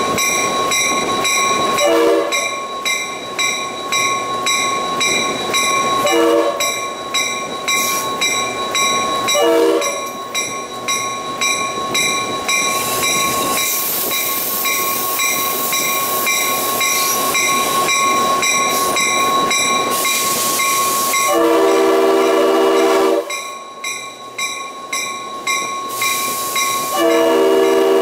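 Diesel locomotive horn sounding two long blasts, one about two-thirds of the way through and one near the end, with three brief horn notes in the first ten seconds: the train signalling its approach to a grade crossing. Under it the moving train runs steadily, with regular clicking from rail joints and a steady high whine.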